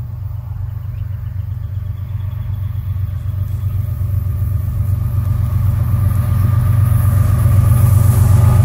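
Diesel freight locomotives leading an empty coal train approaching, their engine rumble growing steadily louder. Rail and wheel noise builds in over the last couple of seconds as the train nears.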